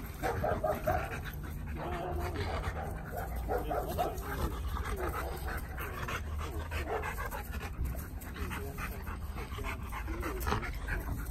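A husky and a Rottweiler playing, with a run of short, wavering whiny vocal sounds from the dogs.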